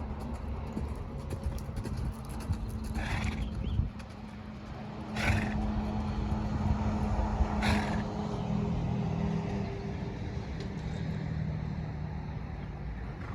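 A horse being ridden, over a steady low hum, with three short rushing, blowing noises about three, five and eight seconds in.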